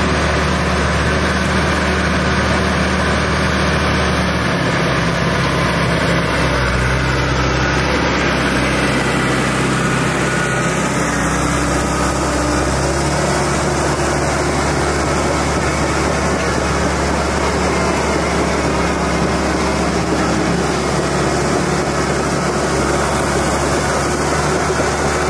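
John Deere 650H crawler dozer's diesel engine running steadily as the machine crawls along dragging a log, its engine note shifting in pitch a few times.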